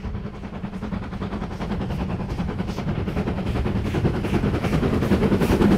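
GWR 4200 Class 2-8-0 tank engine 4270 approaching under steam, its exhaust beats coming in a quick, even rhythm and growing steadily louder as it nears.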